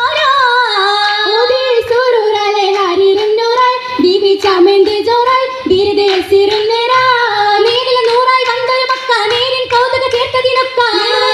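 High young female voices singing a Mappila Oppana song in a wavering, ornamented melody, amplified through a PA, with a few sharp hand claps keeping time.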